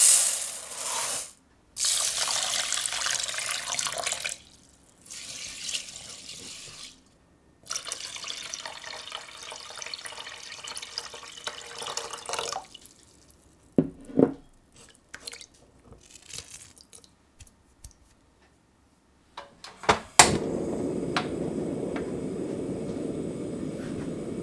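Brown rice and then water poured into a saucepan in several separate pours with short pauses between them. A few light knocks of the pot follow. About 20 seconds in, a portable gas stove lights with a sharp click, and its burner hisses steadily.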